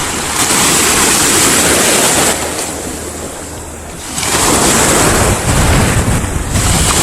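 Sea surf washing with wind buffeting the microphone; the rush eases for about a second and a half around three seconds in, then picks up again.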